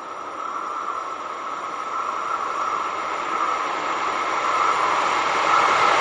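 Electric-hauled passenger train approaching on the line, its rolling noise growing steadily louder.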